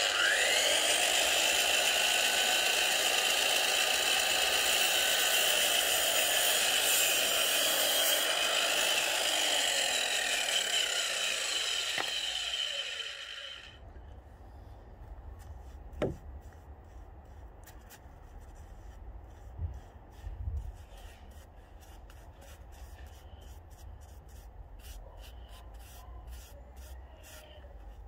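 DeWalt DWS780 sliding mitre saw motor whining up to speed and running through a cut in a painted pine board, then stopping suddenly about fourteen seconds in. After that it is much quieter: a single sharp knock, and a paintbrush dabbing and rubbing on wood near the end.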